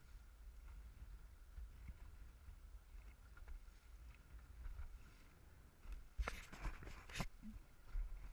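Dragon boat paddles dipping and splashing in the water alongside the boat, over a low steady rumble of wind and water on the microphone. A quick run of sharper splashes and knocks comes about six to seven seconds in.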